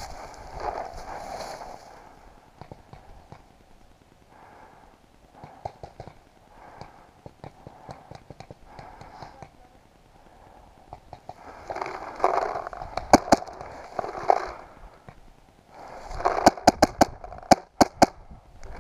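Paintball marker firing: scattered faint pops, then two sharp shots about 13 seconds in and a quick string of about eight shots near the end.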